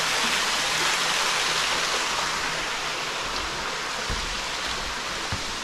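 Small waterfall splashing steadily down onto rocks: a constant rush of falling water.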